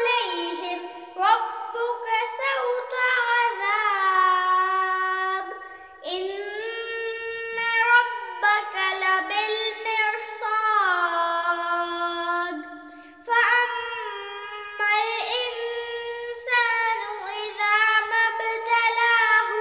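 A young boy reciting the Quran in melodic tajweed style. He draws out long, ornamented notes and takes two short breaths between verses, about six and thirteen seconds in.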